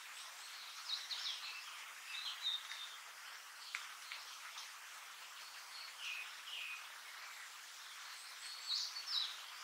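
Blue-and-white flycatcher fledgling calling: short high call notes in little clusters of two or three, coming every few seconds over a steady background hiss.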